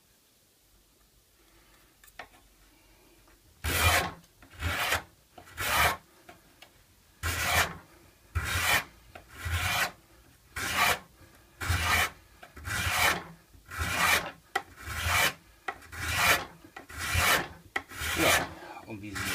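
Hand card scraper with a freshly turned burr drawn in repeated strokes over a clamped wooden board, about one stroke a second, starting a few seconds in after a quiet start.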